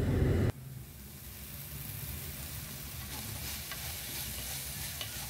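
Minced eel meat sizzling faintly in a steel frying pan as it is stirred with chopsticks, with light scattered ticks of the chopsticks against the pan; the meat is starting to dry out and firm up. A low hum at the very start cuts off abruptly about half a second in.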